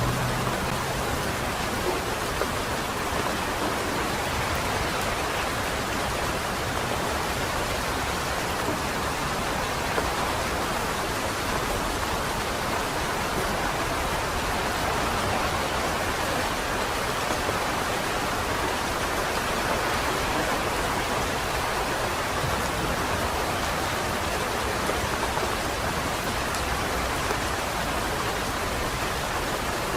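Light rain falling steadily: an even hiss with an occasional single drop ticking louder.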